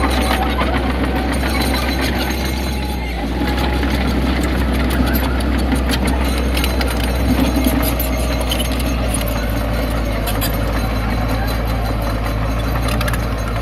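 Heavy diesel earthmoving machinery running steadily, with frequent clanks and rattles of metal and rock.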